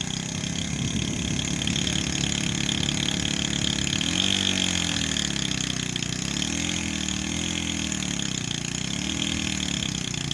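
Small single-cylinder Chinese motorcycle engine running, then revved up and down several times from about four seconds in, its pitch rising and falling in waves, while it pulls against a heavily loaded cart.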